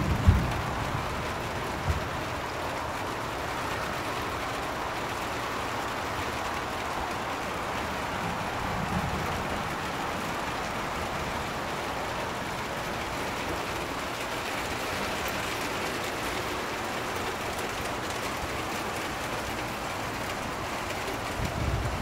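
Steady rain falling, an even hiss, with a few short low bumps in the first seconds and near the end.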